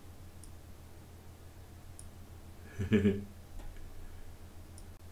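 Computer mouse clicking faintly a few times over a steady low electrical hum, with a brief voiced sound from a man about three seconds in.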